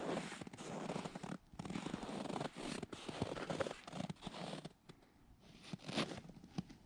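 Scratchy, zipper-like rasping of the hub's nylon shelter fabric and zippers being handled, in several runs of a second or two with short breaks, dying away after about five seconds with a few light clicks.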